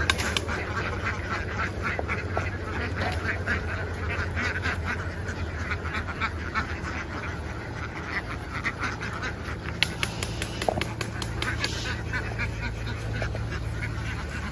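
A large flock of ducks quacking in a dense, continuous chorus, many birds calling at once, over a steady low hum.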